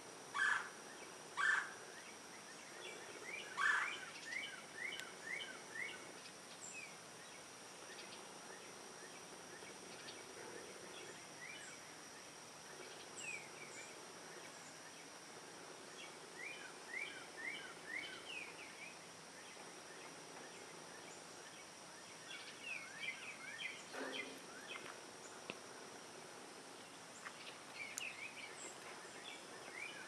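Red-bellied woodpecker calling: bouts of short, quick, down-slurred notes, about five a second, repeated every few seconds, with a few louder, lower calls in the first four seconds. A faint, steady high whine runs underneath.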